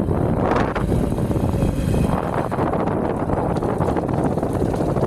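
Vehicle travelling along a road, its running noise mixed with wind rumbling on the microphone.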